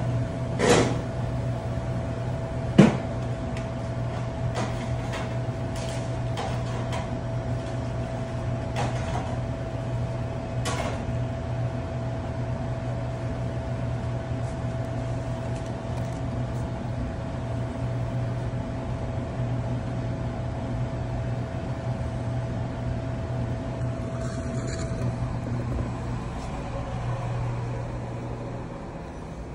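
Commercial kitchen background: a steady low equipment hum with a faint high tone that stops about 25 seconds in, and scattered clicks and clatter of dishes and utensils over the first ten seconds, the loudest knock just under three seconds in.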